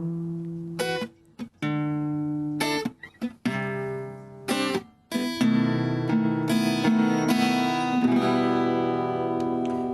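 Acoustic guitar closing an author's song: a few separate chords with short pauses between them, then chords strummed and left ringing from about five seconds in.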